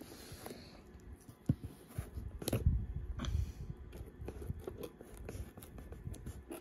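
Toy packaging being handled and opened: scraping and crunching with scattered sharp clicks, the loudest a knock about two and a half seconds in.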